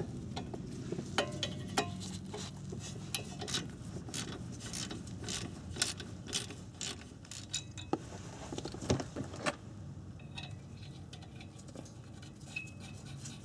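Irregular metallic clicks and clinks of a wrench and steel bolt as the bolt holding an ABS wheel-sensor wiring bracket to the wheel hub is backed out and pulled free by hand. The clicks come thick for most of the time and thin out over the last few seconds.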